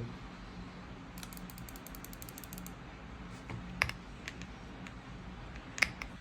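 Typing on a Zoom75 mechanical keyboard with Aflion Ink tactile switches and GMK Monokai keycaps. A quick run of about a dozen keystrokes comes about a second in, then slower single presses, with two louder ones, one midway and one near the end.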